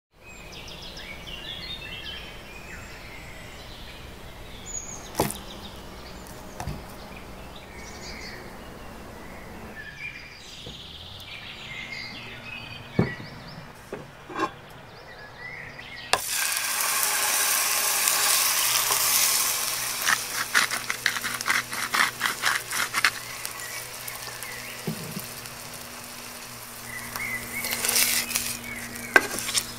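Faint outdoor chirping with a few sharp knocks, then about halfway through a loud hiss of hot oil sizzling in a frying pan sets in suddenly and turns into dense crackling. A fresh burst of sizzling comes near the end as a raw ribeye steak is laid into the pan.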